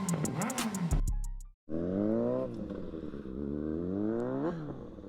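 Music that cuts off about a second and a half in, then a motorcycle engine accelerating. Its pitch climbs, drops back, and climbs again to a peak about four and a half seconds in before falling away.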